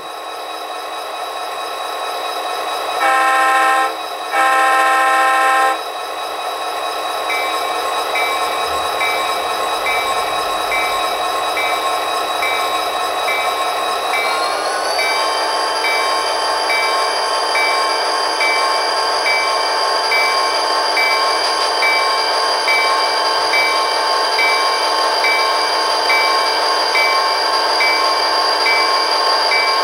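Sound-equipped HO scale SD40-2 model locomotive playing diesel sounds from its SoundTraxx Econami decoder through small sugar-cube speakers. The engine runs steadily, two horn blasts sound about 3 and 4.5 seconds in, and around 14 seconds in the engine notches up as the model pulls away, with a faint regular beat a little more than once a second.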